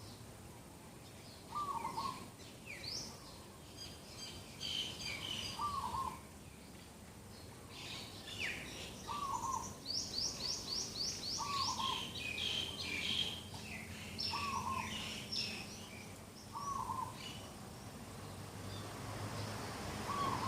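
Several birds singing and calling in the morning. One repeats a short low note every two to three seconds, while others chirp and trill higher, with a quick run of descending notes about ten seconds in.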